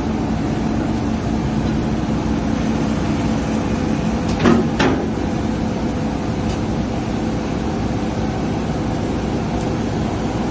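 Amphibious excavator's diesel engine running steadily, with two sharp knocks in quick succession about halfway through.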